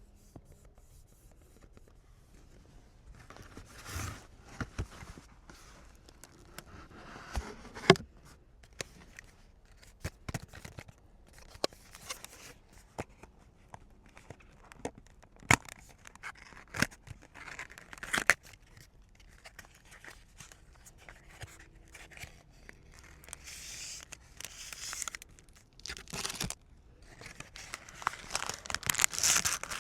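Card packs being opened by hand: wrappers tearing and crinkling in short stretches, with scattered sharp clicks and taps from the cards being handled.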